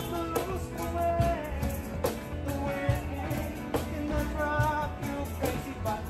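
Live music: an acoustic guitar strummed with a singer's voice over it and a steady low bass underneath.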